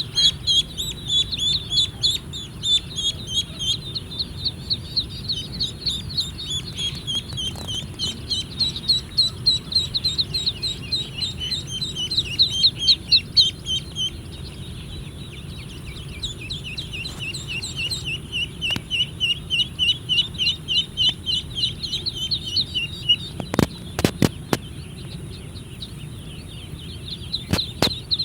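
Chickens calling in a steady stream of short, high-pitched notes, a few a second, with a brief lull midway. A few sharp knocks come near the end.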